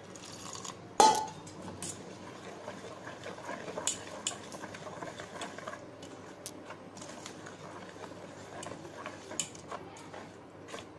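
Wire whisk beating thick bajji batter in a stainless steel saucepan, its wires clicking irregularly against the pan, with one louder knock about a second in.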